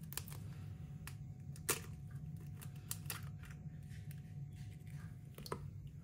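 Eggshell being cracked open and pulled apart over a steel mixer bowl: a few faint, scattered clicks and cracks, the sharpest a little under two seconds in, over a low steady hum.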